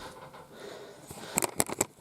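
Large cardboard box being handled to open it: soft rustling, then a quick run of sharp crackles and clicks about one and a half seconds in.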